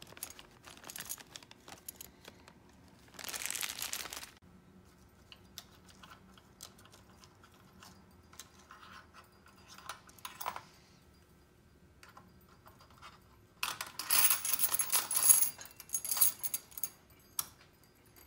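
Thin plastic bag crinkling as a bundle of brass key blanks is handled, with scattered small clicks of metal. About 14 seconds in comes a louder, ringing jingle of the metal key blanks clattering together as they are slid onto a pegboard hook.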